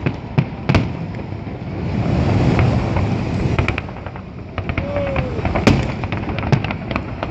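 Fireworks salute: shells bursting overhead in many sharp bangs and pops over a continuous crackle, with a rolling rumble swelling about two seconds in.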